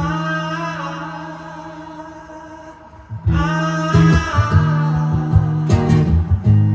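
Live acoustic guitar with a wordless male vocal line. A held chord and voice fade away over the first three seconds, then strumming starts up again about three seconds in.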